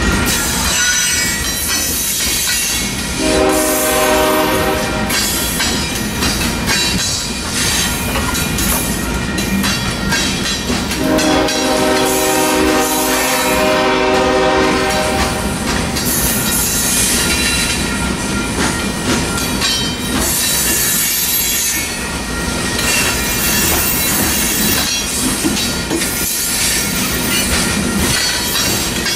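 Loaded coal cars rolling past: a steady rumble and clatter of wheels over the rail joints, with a thin squeal from the wheels. A train horn sounds twice, a short blast about 3 s in and a longer one from about 11 s.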